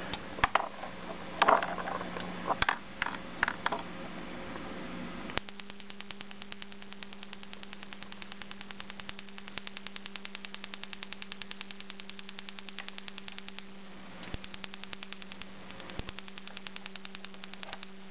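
Electronic BBQ grill igniter sparking into a CCFL tube: a rapid, even train of clicks that starts about five seconds in and runs for about eight seconds while the tube lights. A few single clicks come before and after it, over a steady low hum.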